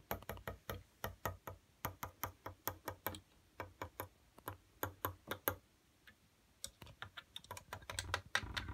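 Plastic Lego mini-doll hopped by hand across a wooden tabletop and Lego plates: a run of quick, uneven clicks and taps, several a second, with a short pause about six seconds in and a low rumble of handling near the end.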